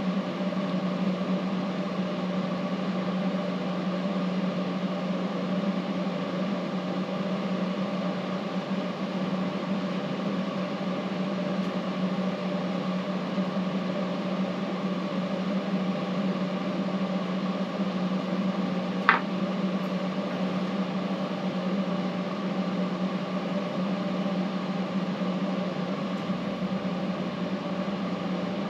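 Steady hum of a small electric motor running, with one sharp click about two-thirds of the way through.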